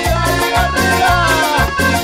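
Live band playing Latin dance music with no singing: a steady, repeating bass beat under a sustained melody line.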